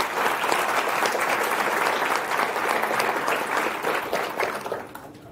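Audience applauding with many hands clapping together. The applause holds steady, then thins and fades about four seconds in.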